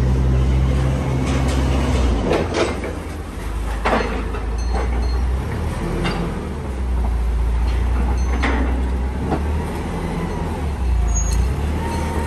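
Semi-truck's diesel engine running with a steady low rumble, with several sharp knocks or rattles at intervals.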